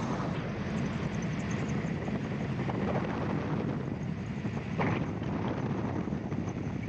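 Cockpit sound of a gyroplane touching down and rolling out on a grass runway: steady engine, rotor and wind noise, with a short knock about five seconds in.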